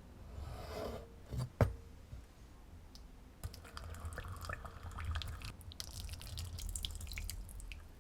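Kitchen water splashing and dripping, with a sharp knock about one and a half seconds in and small clicks and crackles later on.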